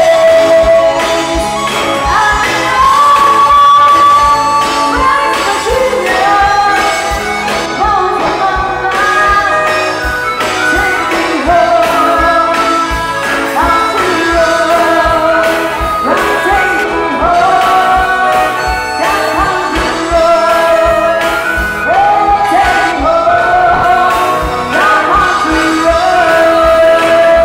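A woman singing a melody live into a microphone, holding notes with vibrato, over musical accompaniment with a steady beat.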